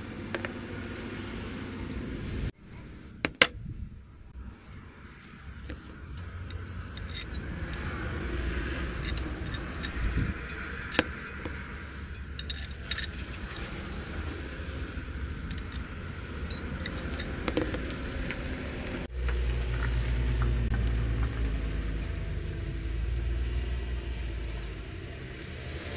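Steel spanners and a metal tube tool clinking and knocking together as they are handled, in scattered sharp clicks. A low steady rumble runs underneath and grows louder near the end.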